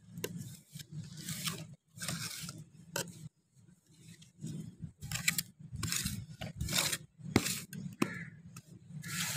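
Loose garden soil being scraped and pushed about in a string of rough scraping strokes, with a couple of sharp clicks near the end, as the bed is levelled.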